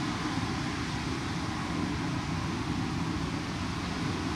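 Steady rush of wind buffeting the microphone over the roar of heavy breaking surf, with a rumbling low end and an even hiss above.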